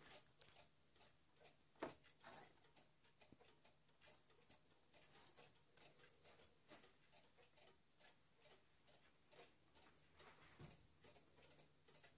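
Near silence: room tone with faint scattered ticks and one slightly louder click about two seconds in.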